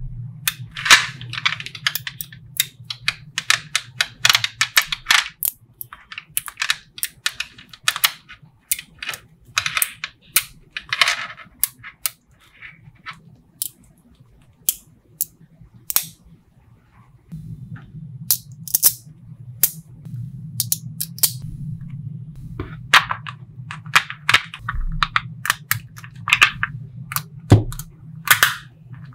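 Small neodymium magnetic balls clicking and snapping together as they are handled, with sharp single clicks and bursts of clattering rattle. A low steady hum sits underneath for much of the time.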